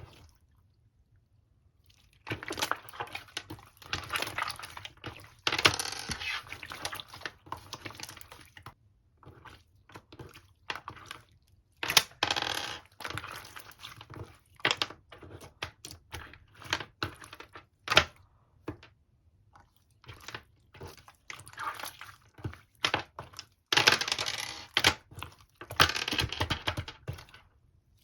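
Slime being pressed and stretched by hand: bursts of crackling with many sharp pops and clicks, starting about two seconds in and coming in waves with short pauses.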